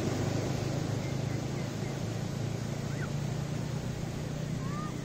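Beach ambience: a steady wash of surf with a constant low motor hum underneath, and a couple of faint short chirps about three seconds in and near the end.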